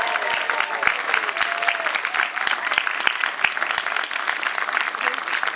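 An audience clapping steadily, with a few cheering voices calling out in the first second or so.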